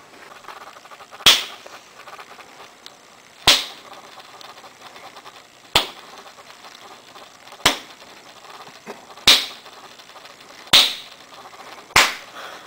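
A plastic spoon smacking hard against bare skin, seven sharp slaps spaced about one and a half to two seconds apart.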